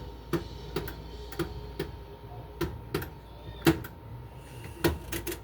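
Washing machine that is switched on with its drum full of water, clicking sharply and irregularly, about a dozen times, over a low steady hum. It will not drain, which the owner puts down to a faulty water-level pressure switch.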